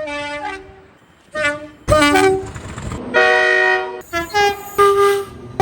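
British train horns sounding about six short blasts in quick succession, most stepping from a high note to a low note. One held, steady blast comes a little after the middle.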